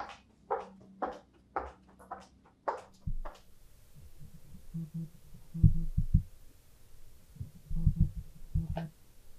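Footsteps on a hard classroom floor, about two a second, for roughly the first three seconds. Then a series of deep, dull thumps in close pairs, around the middle and again near the end.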